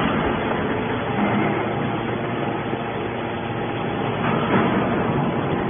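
Hydraulic scrap-metal baler running, its pump and ram making a steady mechanical noise as a compressed bale of aluminum scrap is pushed out of the press chamber.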